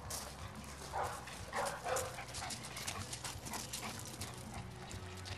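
A Bernese mountain dog makes three short vocal sounds in the first two seconds, then there is a run of crunching footsteps on gravel as dog and handler trot off.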